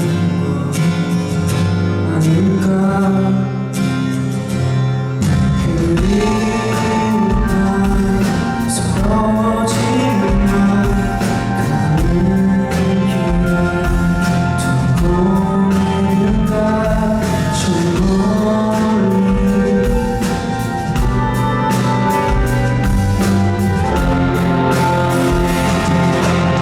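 Live pop-rock band playing a song, with a male voice singing the melody over sustained chords; drums come in with a steady beat about five seconds in.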